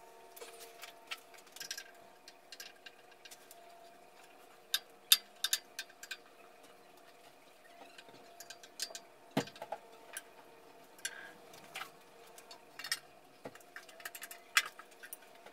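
Irregular light clicks and metallic taps of a hand tool and the bandsaw's sheet-metal door parts being handled, as the door's safety-switch tab is bent out to reach its micro switch, over a faint steady hum. The sharpest click comes about five seconds in, with a duller knock a few seconds later.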